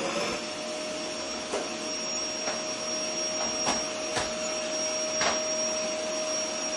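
Vacuum cleaner motor running steadily: a rush of air with a high, even whine, and a few faint clicks along the way.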